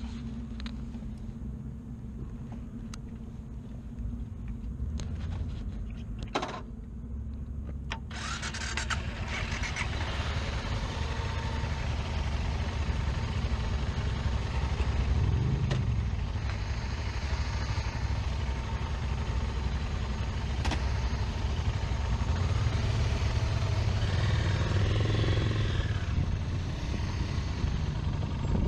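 Motorcycle engine running, much louder from about eight seconds in, with a short rev around the middle as the bike moves off.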